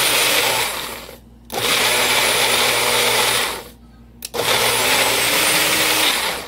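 Countertop blender running in short pulses while blending a homemade barbecue sauce. It makes three runs of about two seconds each, stopping briefly about a second in and again about halfway through.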